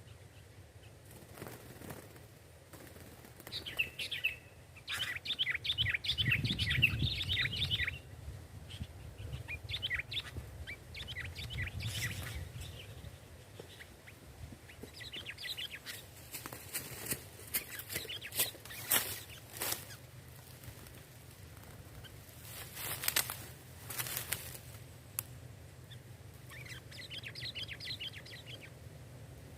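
Sooty-headed bulbuls chattering in short bursts of quick, repeated notes, the calls used and answered when luring bulbuls to a trap. Through the middle come sharp clicks and rustles.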